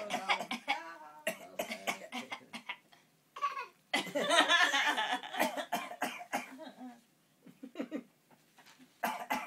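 A young child giving a string of short, put-on fake coughs, with laughter mixed in. The coughs come thick in the first few seconds; a longer stretch of laughing and coughing follows, and a few more short coughs come near the end.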